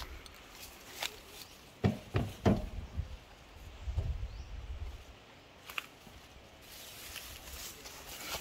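Low rumble of wind buffeting the microphone, with three sharp knocks about two seconds in and a few fainter clicks.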